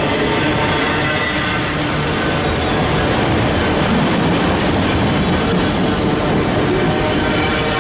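Freight train of autorack cars passing close by: a steady, even rumble and rattle of wheels and car bodies on the rails, with a faint high squeal from the wheels about two seconds in.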